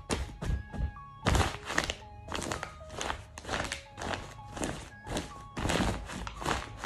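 Fabric rustling and soft thunks as a hand rubs and pats a blanket close to the microphone: irregular scuffs and knocks, several a second.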